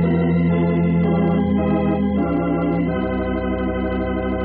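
An organ playing sustained chords, a music bridge in a radio drama. The chord changes about two seconds in and again about a second later.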